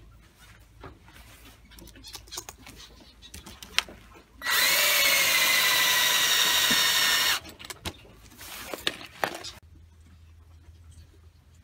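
Cordless drill running steadily for about three seconds as it bores into the water pipe over the nest boxes, the hole for a nipple drinker. The drill starts and stops abruptly. Small clicks and knocks of parts being handled come before and after it.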